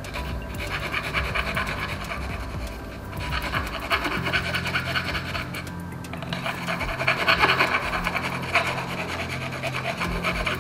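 Flat hand file rasping back and forth across the freshly cut end of a carbon-fibre fork steerer tube, smoothing the cut edge. The filing comes in three runs, with two brief pauses about three and six seconds in.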